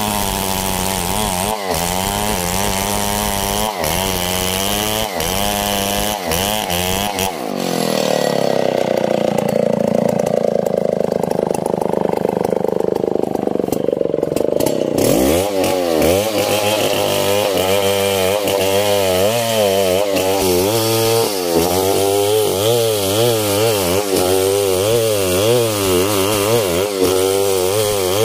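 A STIHL 070 two-stroke chainsaw rips a log lengthwise under load, its engine note wavering as it labours in the cut. About eight seconds in, the note rises and steadies for several seconds, then drops back to the wavering, loaded note.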